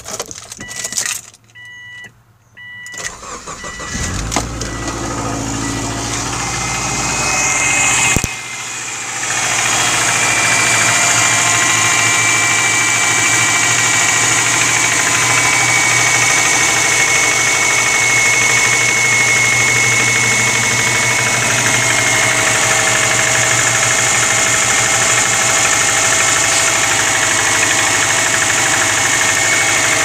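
A few short beeps, then the starter cranks an early-2000s Subaru Forester's flat-four boxer engine for about four seconds. The engine catches with a brief flare about eight seconds in and settles into a steady cold idle. A light tapping runs through the idle: cold-start piston slap in a 250,000 km engine, now on Shell Rotella T6 0W-40 oil.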